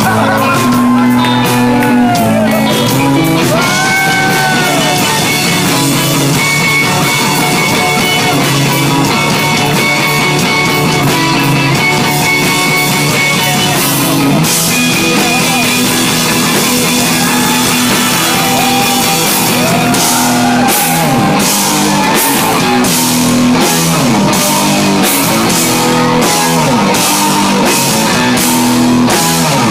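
Prog rock played live by a guitar-and-drums duo: loud electric guitar over a drum kit, with the drum hits becoming dense and rapid in the last ten seconds.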